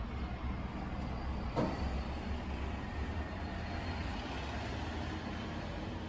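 Steady low hum under a haze of background noise, with one sharp click about one and a half seconds in.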